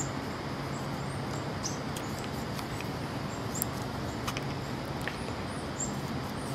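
Groundhog chewing an apple held in its paws: scattered short, sharp crunches and clicks of biting. Under them runs a steady background hum, with faint, high bird chirps repeating throughout.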